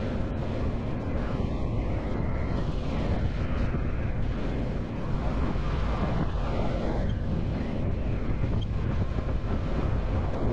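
Vehicle driving over the trail with wind on the microphone: a steady, rough rumble.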